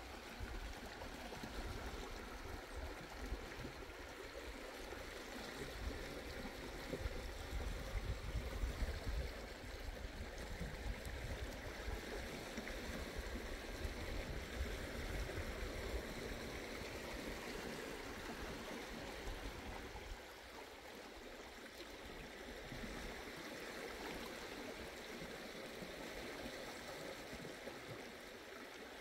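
Steady rush and splash of sea water, with an uneven low rumble of wind on the microphone that eases off about 20 seconds in.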